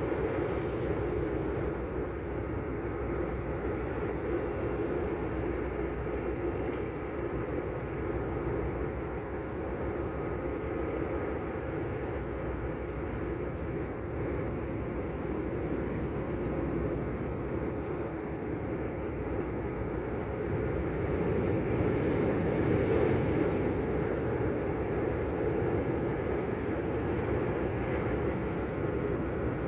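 Steady wash of small waves on a rocky shore, mixed with wind rumble on the microphone. It swells about two-thirds of the way through. Faint high chirps repeat every few seconds.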